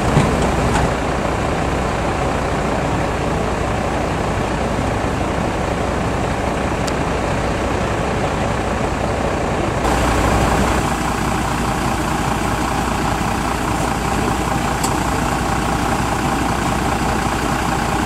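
A truck's diesel engine idling steadily, most likely a parked fire engine. The background noise changes abruptly about ten seconds in.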